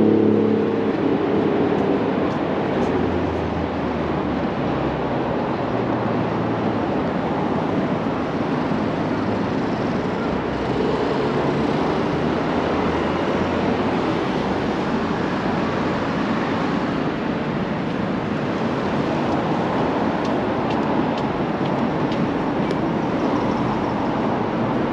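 Steady road traffic noise, with a vehicle engine fading out about a second in.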